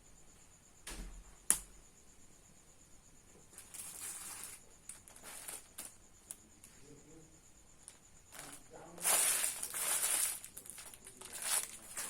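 A sharp click, then several bursts of crinkling, rustling noise, the longest a little after the middle, over a faint steady high-pitched whine.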